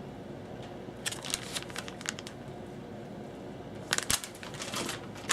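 Plastic bait packaging handled: a run of light crinkles and clicks about a second in, and a louder cluster of crackles about four seconds in.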